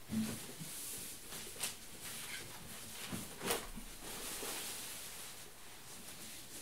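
Plastic packaging rustling as it is handled, with a few light knocks, the loudest about three and a half seconds in.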